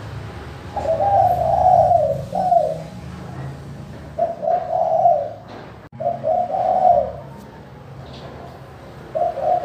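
Spotted dove (tekukur) cooing its perch song: about four coo phrases, each one to two seconds long, with short pauses between them, over a steady low hum.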